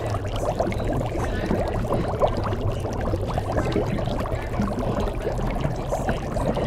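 Steady sound effect of liquid pouring.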